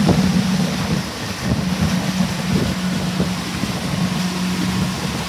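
Pontoon boat's motor running at a steady hum while under way, with wind rushing over the microphone.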